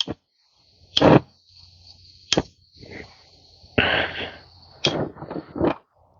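Workshop handling noise: a handful of sharp knocks and clatter from metal pieces being moved and set down, with a short scraping rush in the middle and a faint steady hiss underneath.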